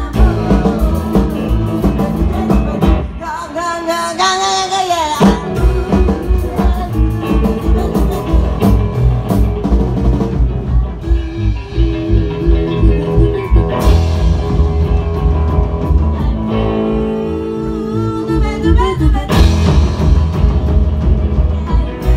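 Live rock and roll band playing loud: electric guitar, bass and drum kit on a steady, driving beat, with a woman singing in stretches.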